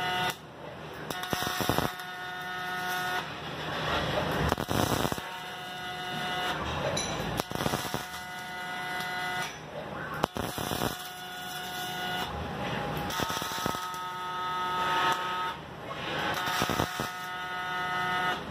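Robotic MIG welding arc buzzing and crackling through several welds a few seconds each, broken by short pauses as the torch moves between seams. Some welds carry a steady buzzing tone, others a rougher crackle.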